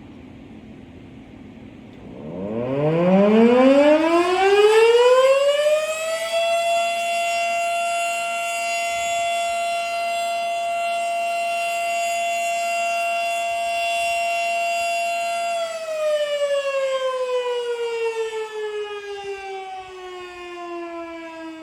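Federal Electric Model 3 fire siren, with a 3 HP AC motor and 12 ports, sounding a short test alert. It winds up from about two seconds in to one steady high wail, holds it for about nine seconds, then winds down as the rotor coasts.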